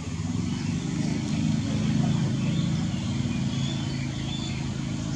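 A motor engine running steadily with a low hum, growing louder over the first two seconds and then holding.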